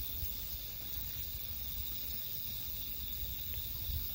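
Male Japanese rhinoceros beetle mating, making creaking 'gyu gyu' squeaks by vibrating its body and antennae, over a steady chorus of crickets.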